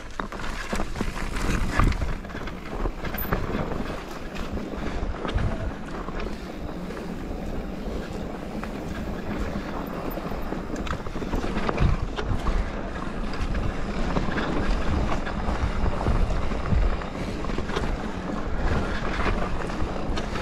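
Wind buffeting the microphone over the rumble of mountain-bike tyres on a dirt and stony singletrack, with frequent small knocks and rattles from the bike over rough ground.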